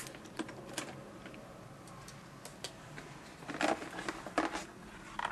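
A keycap puller gripping and pulling a keycap off a Kogan mechanical keyboard: scattered small plastic clicks and knocks, the loudest a pair of clatters about three and a half and four and a half seconds in.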